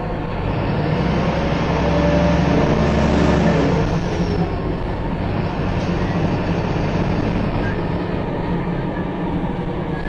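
Wright Pulsar single-deck bus heard from inside the passenger saloon while under way: steady engine and road noise, the engine note swelling as the bus pulls harder about two seconds in, then settling back to a steady run.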